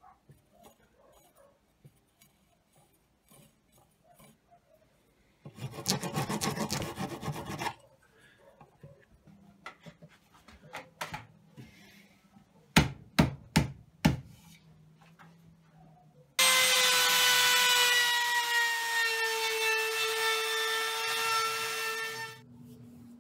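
Light handling of wood, then about two seconds of quick rasping on wood, four sharp knocks, and an electric drill's motor whining steadily for about six seconds, its pitch sagging slightly under load before it stops.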